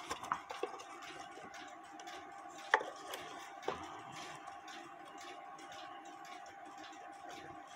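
Faint clicks and light knocks of a cuckoo clock bellows and its wire lift wire being handled and fitted into the wooden clock case. The sharpest click comes a little under three seconds in and another about a second later.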